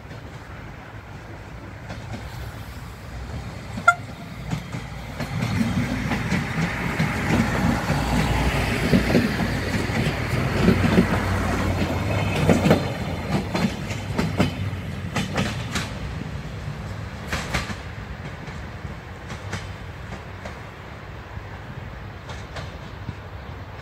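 Siemens Desiro diesel multiple unit passing slowly at close range, its engine and running gear rising to a rumble and then fading as it draws away. A run of sharp clicks from the wheels crossing rail joints comes near the middle as it goes by.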